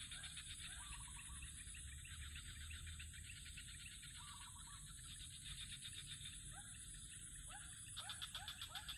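Faint outdoor chorus of birds chirping in many short rising calls, with quick chattering notes that grow busier near the end, over a steady high-pitched buzz.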